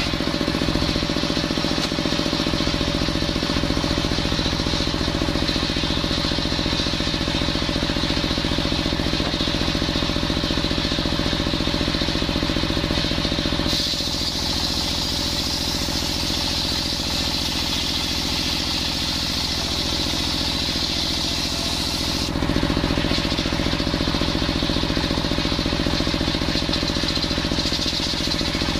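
Engine-driven sawmill circular saw running steadily while its large blade rips coconut-wood planks, a constant engine hum under the hiss of the blade. The tone shifts about halfway through, brighter and hissier, then settles back near the end.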